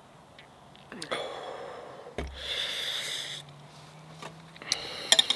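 A beer glass set down with a thump on a wooden table about two seconds in, followed by a long breathy exhale after a swallow of beer. Near the end a fork clinks sharply on a plate a few times.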